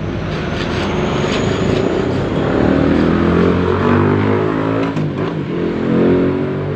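An engine running, its pitch rising from a little over two seconds in and then wavering up and down as it revs.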